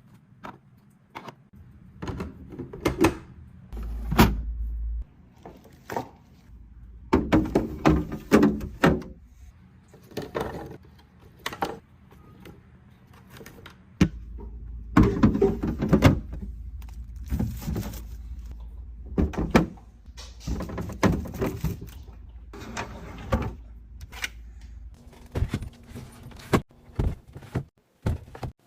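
Containers and groceries being set onto refrigerator shelves and into bins: a run of knocks, clicks and small rattles, with rustling between them. A low hum runs underneath for a long stretch in the second half.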